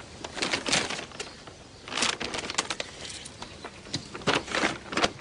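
Paper shopping bag rustling in several short bouts as it is opened and rummaged through.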